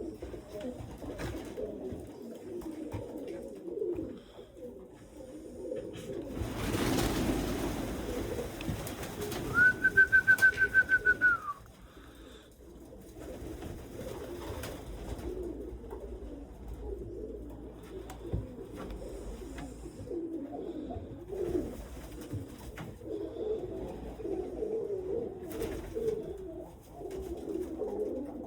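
Domestic pigeons cooing continuously. About seven seconds in there is a couple of seconds of rushing noise, then a rapid run of about ten high, even beeps over two seconds, the loudest sound, ending on a slight drop in pitch.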